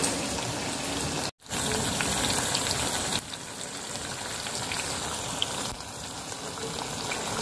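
Hot oil sizzling steadily in a kadhai as gram-flour-battered leaf fritters (bhaji) deep-fry, with a brief break about a second and a half in.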